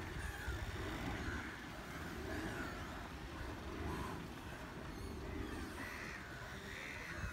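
Crows cawing repeatedly, one short call after another, over a steady low rumble.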